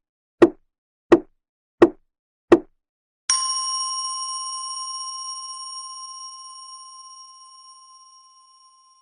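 Temple mokugyo (wooden fish drum) struck four times at an even pace, hollow wooden knocks, then a keisu bowl bell struck once about three seconds in, ringing with several clear tones that fade slowly over the rest.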